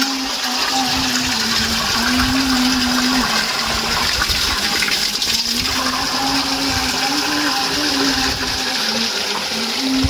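Water pouring steadily from a pipe spout into a basin, splashing as it lands: a continuous rushing sound.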